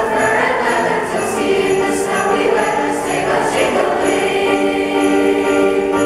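Youth choir singing with sleigh bells shaken in a steady beat, about two shakes a second. The voices settle into a long held chord over the last couple of seconds.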